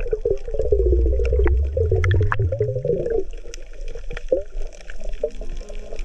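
Underwater water noise: gurgling and bubbling around the camera, with a low warbling sound that rises in pitch and stops about three seconds in. Scattered sharp clicks run through it.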